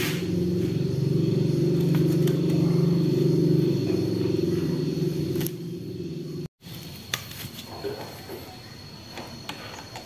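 A steady low hum for the first five seconds or so, then, after a cut, a few light metallic clicks from hand tools working at a motorcycle engine's coolant hoses.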